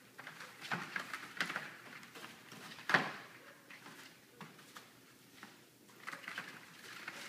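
Puppies scrabbling and shuffling over wood shavings in a plastic pool: scattered soft rustles and small clicks from paws on shavings and plastic, with one sharper knock about three seconds in.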